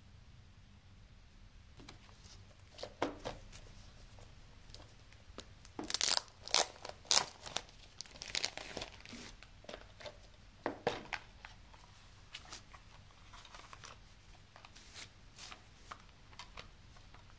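Clear plastic shrink-wrap being torn and peeled off a CD/DVD case, crinkling and crackling in quick sharp bursts that are loudest about six to seven seconds in. After that come sparser, fainter crinkles and light clicks as the plastic case is handled and opened.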